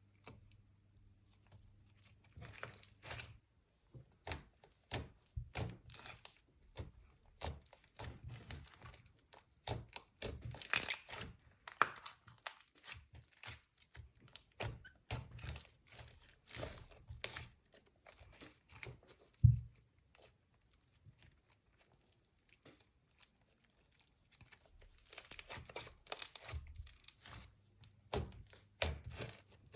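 Hands squishing and stretching slime mixed with makeup, giving irregular sticky crackles and pops, with one louder thump about two-thirds of the way through and a pause of a few seconds after it.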